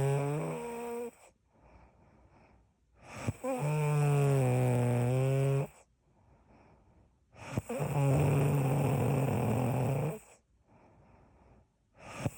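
Loud, droning snoring: long pitched snores of about two and a half seconds each, coming about every four and a half seconds with quiet breaths between. The tail of one snore, then two full ones, the second rougher and raspier; another begins near the end.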